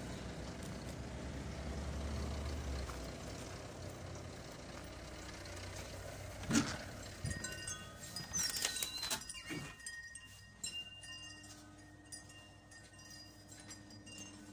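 Low outdoor rumble, then knocks and clatter as a shop's entrance door is opened and closed, with a short high tone about halfway through, followed by the quieter steady hum of a shop interior.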